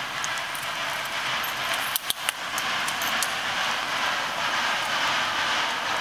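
C&O 1309, a Mallet compound articulated steam locomotive, working hard upgrade out of sight: its exhaust is a steady rushing noise that slowly grows louder as it approaches. A few sharp clicks about two seconds in.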